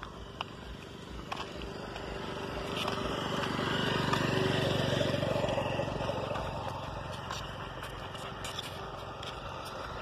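A motor vehicle driving past on the road. Its engine and tyre noise swell over a few seconds, are loudest about four to five seconds in, then fade away.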